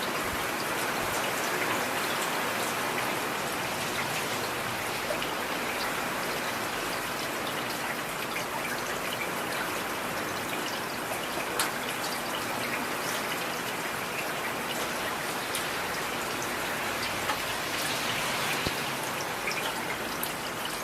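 Heavy rain falling steadily, with individual drops ticking close by.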